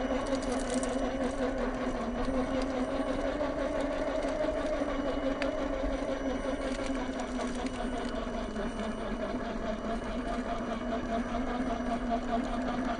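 Electric motor and geared drivetrain of a 1/10 scale Lesu Unimog 406 RC truck running, a steady whine that dips a little in pitch through the middle and rises again near the end.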